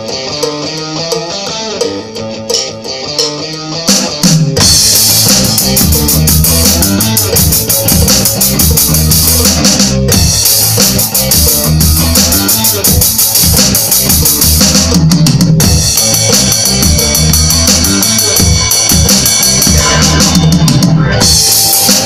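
Electronic drum kit played along to rock music with guitar: a lighter opening for about four seconds, then the full beat with kick and cymbals comes in, broken by short stops near ten, fifteen and twenty-one seconds.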